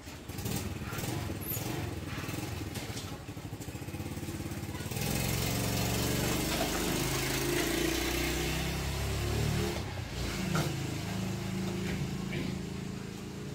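Motorcycle engine running steadily, growing louder with a rushing hiss about five seconds in.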